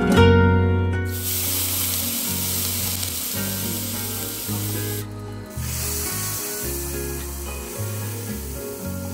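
Sizzling on a hot dosa griddle, starting abruptly about a second in, dropping out briefly near the middle, then going on more faintly, over background music with a plucked melody and a bass line.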